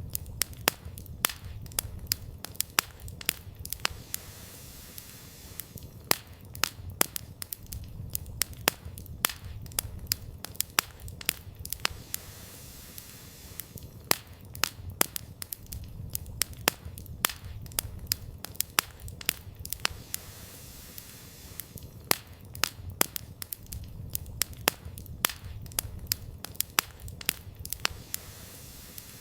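Campfire of burning firewood crackling and popping: frequent irregular sharp pops over a steady low rumble of the flames.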